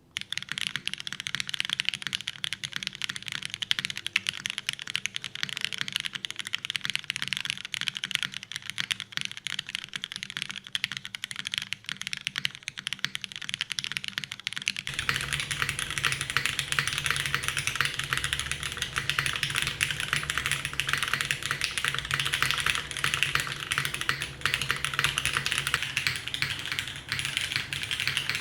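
Continuous typing on a custom mechanical keyboard with lubed Cherry MX Black linear switches, an aluminium plate and GMK doubleshot keycaps: a dense, rapid patter of keystrokes. About halfway through it grows louder and deeper.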